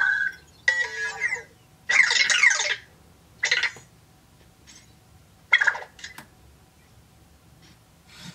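Anki Vector robot making a run of electronic chirps and warbling beeps, several gliding down in pitch, in short bursts through the first six seconds, then a few faint blips. These are its reaction to a spoken question it gives no answer to.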